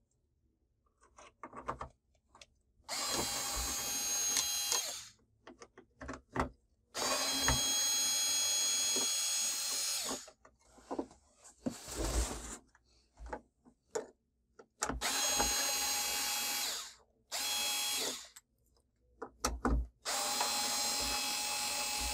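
Electric screwdriver whirring in six runs of one to three seconds as it backs out the screws holding a flat-panel TV's stand. Short clicks and knocks of handling come between the runs.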